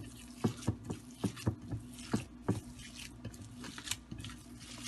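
Hands kneading minced beef in a glass bowl: short, irregular wet squishes and pats, a few a second.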